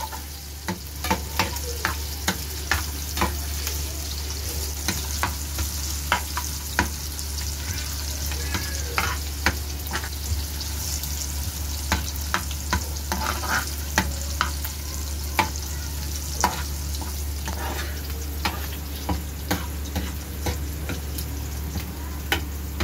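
Sliced ginger, dried red chillies and curry leaves sizzling in hot oil in an aluminium frying pan for a tadka, while a spoon stirs them and clicks against the pan again and again. A steady low hum runs underneath.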